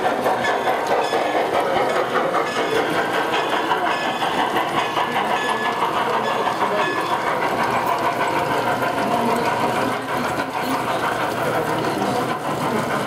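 G-scale model trains running on a show layout, heard over the steady babble of a crowd talking in the hall.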